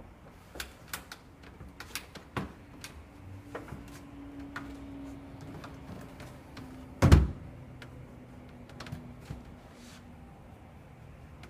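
Scattered light clicks and taps of a squeegee being worked over security film on window glass, with one loud thump about seven seconds in.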